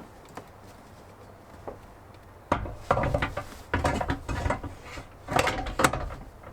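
Irregular clunks, knocks and scraping of a van's front passenger seat being handled and set onto its metal swivel base, starting about two and a half seconds in.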